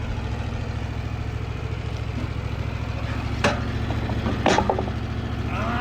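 Wood-Mizer LT15WIDE portable band sawmill's engine running steadily, with two sharp knocks about a second apart past the middle, the second ringing briefly.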